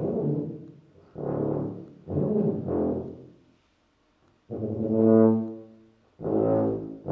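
Solo tuba playing separate swelling notes with short gaps between them, the first few rougher and airier. After about a second of silence near the middle comes a longer, clearer held low note, and another begins near the end.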